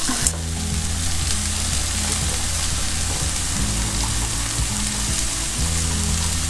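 Shrimp and vegetables sizzling steadily in a frying pan as they simmer in a reduced white-wine sauce.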